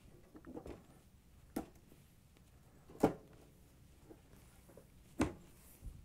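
A few light knocks and clicks as the outer glass panel of an oven door is set down and seated on the door frame, the loudest about halfway through.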